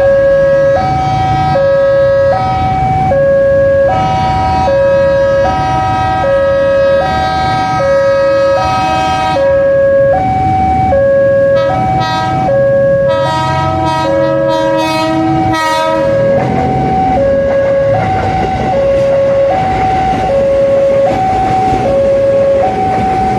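Two-tone electronic alarm alternating between a high and a low note about every three-quarters of a second, steady in pitch and loudness. Other tones briefly join it about 13 to 16 seconds in.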